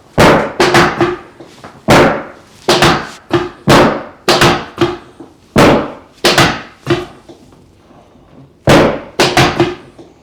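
A chiropractic adjustment on a treatment table: a run of about twenty loud, sharp knocks in quick groups of two to four, each with a short ring, and a pause of about two seconds before the last group.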